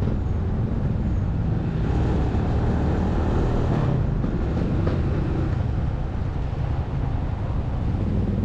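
Motorcycle engine running steadily while riding at low speed in city traffic, heard from the bike's mounted camera, with road and wind noise.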